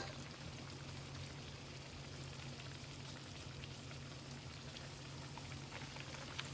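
Guyanese bakes frying in hot vegetable oil: a steady, faint sizzle with scattered small crackles.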